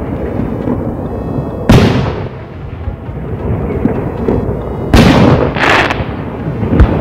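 Aerial firework shells bursting: two loud booms about three seconds apart, each echoing away slowly. A shorter, sharper bang comes near the end.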